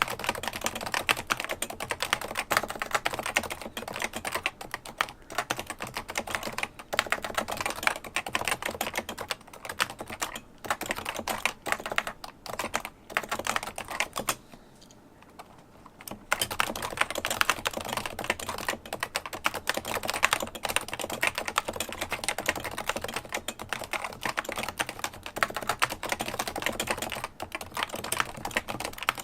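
Continuous fast typing on a Realforce 108UG-HiPro keyboard with 45 g Topre electrostatic capacitive switches, a dense run of keystrokes. About halfway through, the typing stops for a second and a half, then carries on.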